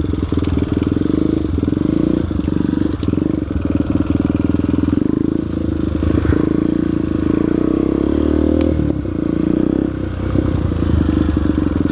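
Single-cylinder four-stroke trail motorcycle engine running at low, varying throttle, with a couple of sharp clicks from the ride.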